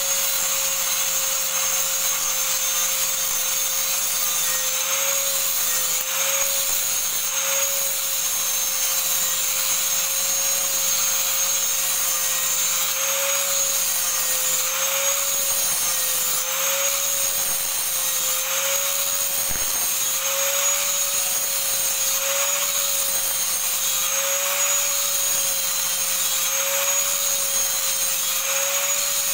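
Electric angle grinder running without a break, its disc grinding rust off a metal bar held in a vise. A steady whine whose pitch dips and recovers slightly again and again as the disc is pressed into the metal and eased off.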